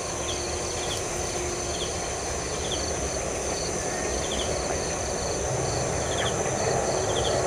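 Insects chirping in short, quick pulsed groups, a few seconds apart, over a steady rushing background noise.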